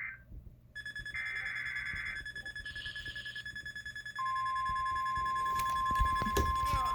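NOAA Weather Radio Emergency Alert System tones for a flood warning, played through a weather radio receiver. A buzzy SAME header data burst about a second in, over a rapidly pulsing high beep; then, about four seconds in, the steady 1050 Hz warning alarm tone begins. A few clicks sound near the end.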